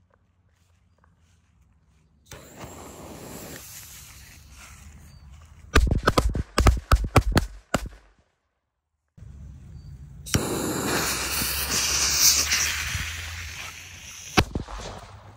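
Firecrackers going off: a hiss, then a rapid string of about eight sharp bangs around six seconds in. After a short gap, a loud hissing spray for about four seconds, then one more bang near the end.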